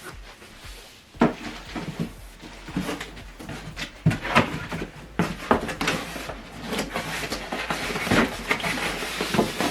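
Packaging being handled during an unboxing: irregular knocks, clicks and scrapes, with rustling, starting about a second in.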